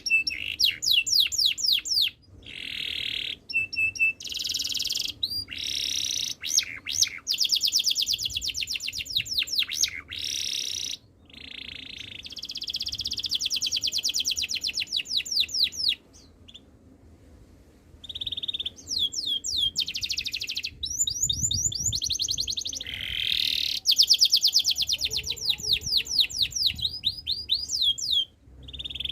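Domestic canary singing: long rolling trills of fast repeated high notes and quick sweeping phrases, broken by short pauses and one gap of about two seconds past the middle.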